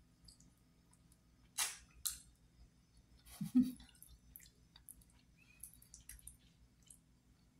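Wet mouth sounds of eating braised oxtail by hand: lip smacks, sucking and chewing at the meat on the bone, in short scattered clicks. There are two louder sucks or slurps about a second and a half in and a short voiced sound about three and a half seconds in.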